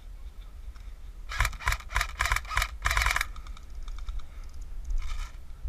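Airsoft M16-style rifle firing a rapid string of about eight sharp clicky shots, roughly four a second, then a shorter, fainter burst of a few more near the end.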